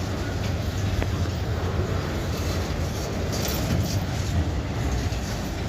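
Freight train cars, autorack double-deckers, rolling past close by: a steady rumble of steel wheels on the rails.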